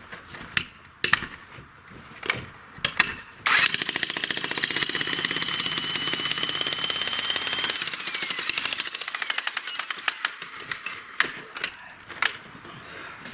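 Bosch jackhammer with a flat chisel breaking concrete. It starts suddenly about three and a half seconds in, hammers rapidly for about five seconds, then tails off and stops. Scattered knocks come before and after it.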